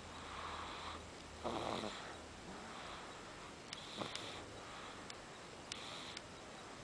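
A small child snoring faintly in his sleep, a soft breathy snore with each breath about every second or so.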